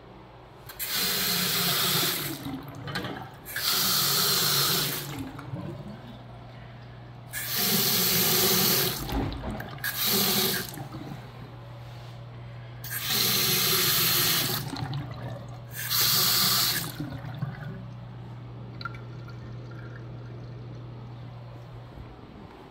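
Water from a two-handle chrome bathroom faucet running into the sink basin in six short spurts of one to two seconds each, as the faucet is turned on and off again and again. A steady low hum runs underneath.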